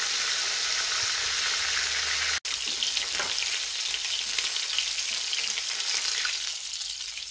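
Food frying in hot oil in a pan, a steady sizzle with crackles. It cuts out for an instant about two and a half seconds in, then comes back crackling more and eases off near the end.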